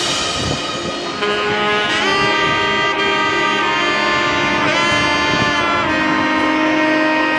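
Background music of long held notes that change every second or so.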